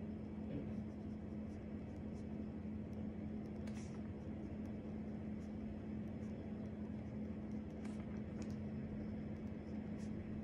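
A steady low electrical hum, with faint scratches of a pen writing on paper now and then.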